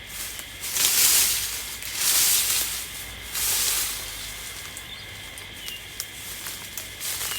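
Three sweeping strokes of a garden rake dragged through cut branches, leaves and grass clippings, each a rush of rustling about a second long, heaping the debris into a pile.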